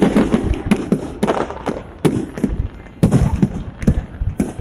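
Fireworks display: aerial shells going off in a rapid, irregular run of sharp bangs, a dozen or more in a few seconds.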